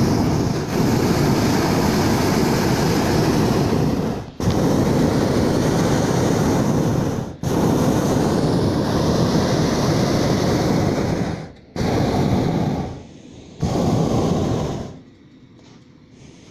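Hot-air balloon's propane burner firing: a loud, steady roar in several long blasts with brief breaks between them, stopping near the end.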